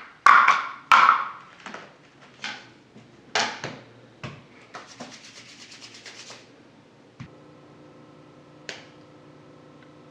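A few sharp knocks as a cutting board and a beet are set down on a granite kitchen counter, then a quick rapid rubbing of hands together. About seven seconds in the sound cuts abruptly to a steady low hum.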